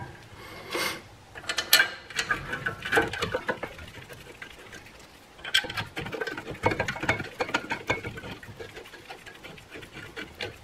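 Light, irregular metal clicks, taps and scrapes as a brake caliper bracket is set against the steering knuckle and its bolts are threaded in by hand.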